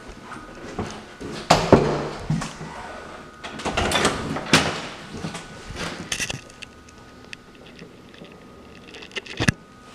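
Closet doors being opened and handled: a few separate knocks and clicks with rustling between, one sharp click near the end.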